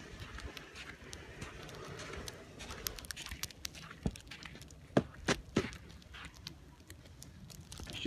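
Footsteps in snow on a partly cleared walkway, with a few sharp knocks or clicks about four to six seconds in.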